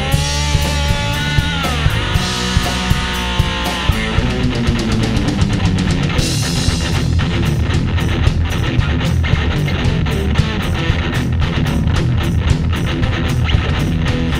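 Live blues-rock band playing an instrumental passage on electric guitar, bass guitar and drum kit, with a steady beat. The guitar holds long notes bent up in pitch, then after about four seconds gives way to a busier, drum-heavy stretch.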